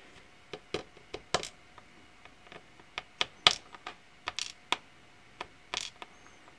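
Irregular small metallic clicks and taps from a Nemef NF2 pin-tumbler lock being taken apart by hand, as the key and core are worked out and the small parts are handled.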